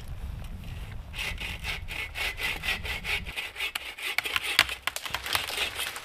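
A hand saw cutting wood in quick, rhythmic back-and-forth strokes, starting about a second in.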